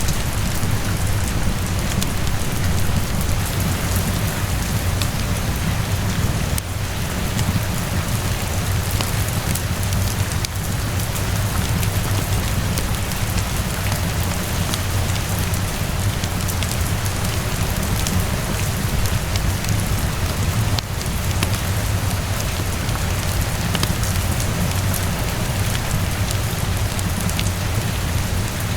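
Steady heavy rain with a constant low rumble underneath, dotted with sharp crackles and pops from a wood fire.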